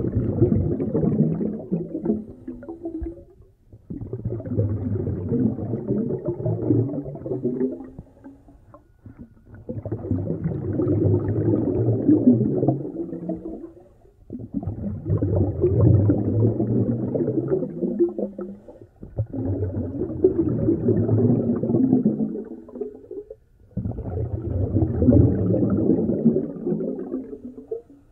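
Scuba regulator exhaust bubbles heard underwater, bubbling loudly in six bursts of three to four seconds each, with short quiet gaps between: a diver breathing out through the regulator, then breathing in.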